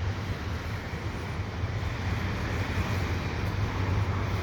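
Double-stack freight train rolling past at a distance: a steady low rumble of wheels on rail.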